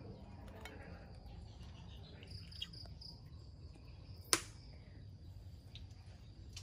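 Crickets chirping in pulses over a steady low background hum, with a single sharp click about four seconds in.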